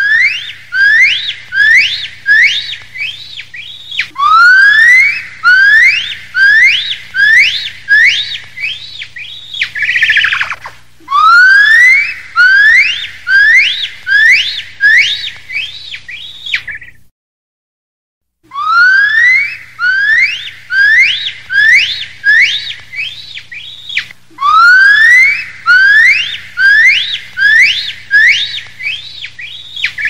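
Gibbon calling: phrases of loud, rising whooping notes that come faster and faster and climb higher, each phrase starting over every few seconds. One phrase ends in a falling note about ten seconds in, and the calling breaks off for a second or so midway before starting again.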